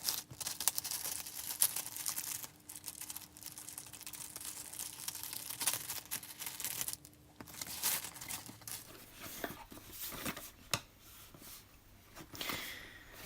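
Box packaging being torn and crinkled open by hand, with irregular rustling and sharper tearing and clicking sounds.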